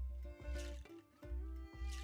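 Background music with a steady beat: deep bass notes pulsing in pairs under sustained held notes, with a cymbal-like swell about every second and a half.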